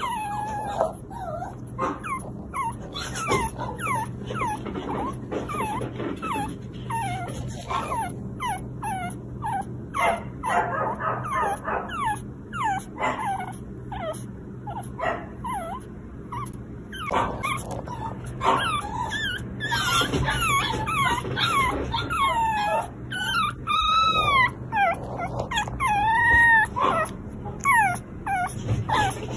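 Very young Pomeranian puppy whimpering unhappily: a long string of short, high-pitched squeaks that fall in pitch, with a few longer whines that rise and fall in the later part.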